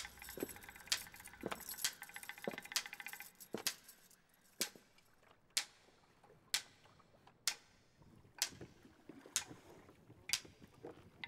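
Heavy iron chains clinking and jangling for the first few seconds. Then a sharp knock repeats about once a second.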